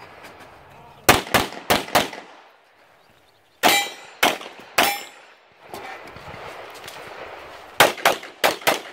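Gunshots from a 9mm Glock 34 pistol fired in strings: four quick shots about a second in, three more spaced about half a second apart in the middle, some followed by a brief ringing tone, and a fast string of five near the end.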